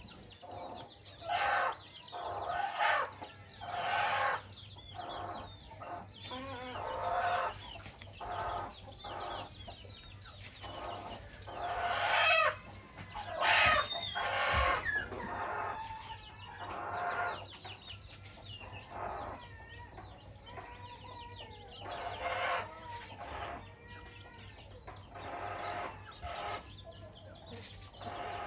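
Chickens clucking over and over, with roosters crowing now and then; the longest, loudest calls come about twelve and fourteen seconds in.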